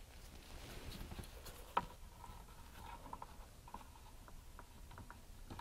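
Faint handling sounds: a syringe scraping and tapping lightly against the grooves of an ABS plastic case while glue is injected, with one sharper click about two seconds in.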